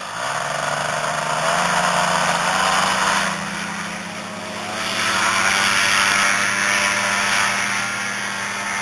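Paramotor engine and propeller running at high throttle for a powered-paraglider takeoff, its pitch rising over the first couple of seconds, dipping in level for a moment in the middle, then running steadily.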